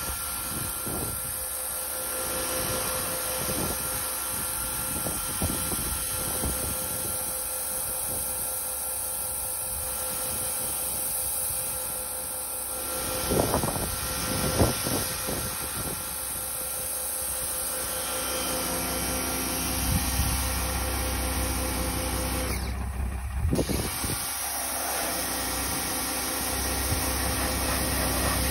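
Pressure washer's engine running steadily, with a few short clunks about halfway through and a deeper rumble building later.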